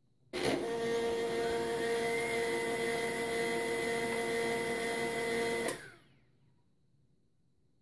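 HP LaserJet 1200 laser printer running its power-on cycle: a steady mechanical whir with a whine, one pitch gliding up briefly early in the run, starting suddenly and stopping after about five seconds. Its laser scanner motor has just been oiled with a drop of 3-in-1 oil to cure a squeal, and the owner judges the fix looks like it might have worked.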